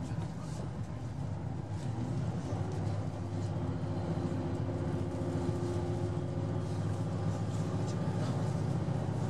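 Cabin noise of a KiHa 189 diesel railcar running at about 115–120 km/h and gathering speed: a steady low drone of the diesel engine and wheels on rail, with faint steady tones above it.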